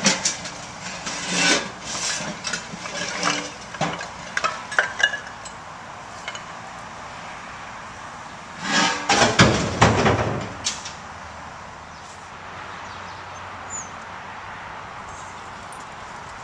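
A run of sharp metallic clanks and knocks, then a louder clattering burst with a low rumble from about nine to eleven seconds in, over a steady outdoor hiss.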